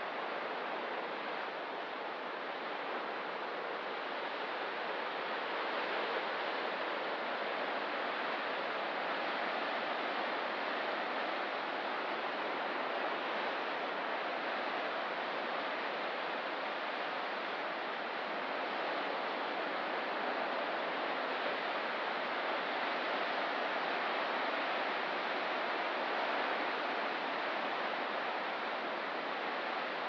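Ocean surf washing against a rocky shore: a steady, even wash with no separate breaking waves standing out.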